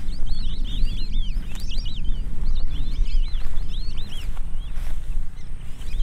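Many birds calling at once: a dense, overlapping run of high, quick, arched chirps, over a steady low rumble.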